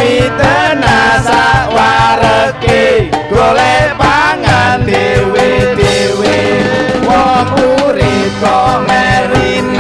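Live band playing Indonesian pop through a PA: a man sings lead into a handheld microphone over electric guitar and a drum kit.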